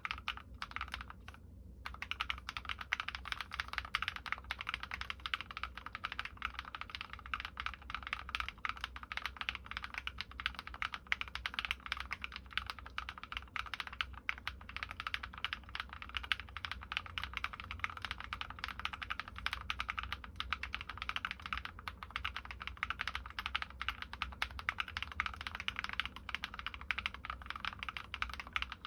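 Fast, continuous typing on a Drop+OLKB Planck V6 ortholinear mechanical keyboard with lubed linear switches (MX Black housings, Kailh Red stems) and MT3 keycaps fitted with o-rings. The typing pauses briefly just after the start, then keeps going as a dense run of key clacks.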